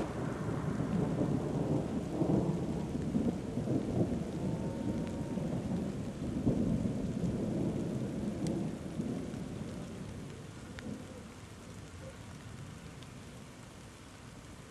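Thunder rumbling in one long, low roll from an approaching thunderstorm. It is loud for about the first nine seconds, then dies away.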